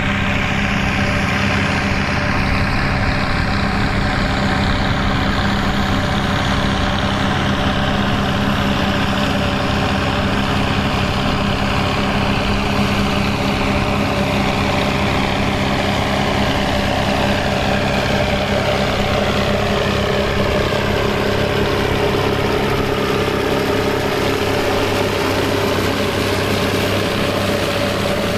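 Turbocharged Fiat 800 tractor diesel engine running steadily while it drives a sugar beet top-cutter, with higher whining tones that slowly fall in pitch over much of the stretch.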